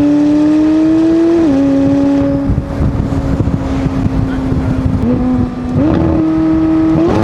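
McLaren 600LT's twin-turbo V8 running under load: the engine note climbs slowly, then drops about a second and a half in, as at a gear change. From about two and a half seconds the sound turns choppy and crackly over a steady note, and near the end the revs rise in steps.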